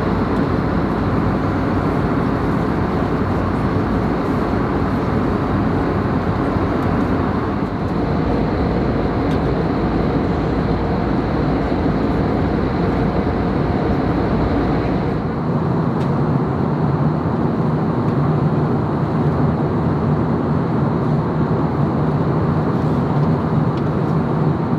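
Steady roar inside an Airbus A321neo's cabin in flight, the engines and the airflow over the fuselage. About fifteen seconds in the sound changes suddenly: the deep rumble drops away and a steadier mid-low hum takes over.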